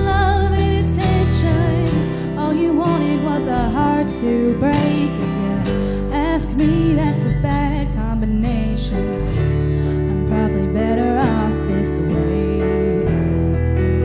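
A song with guitar accompaniment and a singer's voice carrying the melody over sustained chords and bass.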